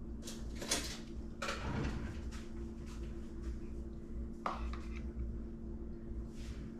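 A few brief kitchen clatters and rustles, with one sharper knock about four and a half seconds in, over a steady low hum.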